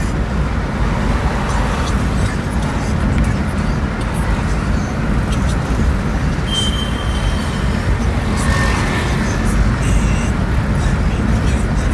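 Steady engine and road noise of a moving car, heard from inside the cabin, with a brief thin high tone about halfway through.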